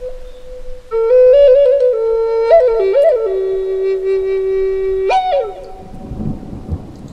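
Native American–style flute (pimak) in G playing a slow improvised phrase with quick grace-note flourishes. It settles on a long held low note that ends with a sharp upward flick about five seconds in. A thunderstorm's low thunder rumble then comes in.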